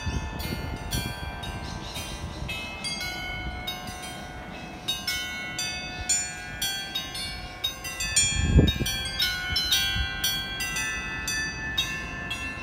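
The Federation Bells, an array of thirty-nine harmonic bells struck by a computer-controlled striking system, playing a composition: a quick succession of struck notes, each ringing on and overlapping the next. A brief low thud about eight and a half seconds in.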